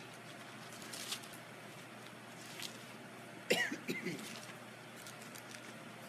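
A woman clears her throat with a short cough a little past halfway through. Faint rustles and clicks come from leafing through Bible pages before it.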